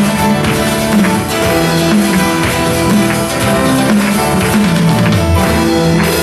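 Live worship band playing: strummed acoustic guitar, electric guitar, keyboard and drums, with a steady beat.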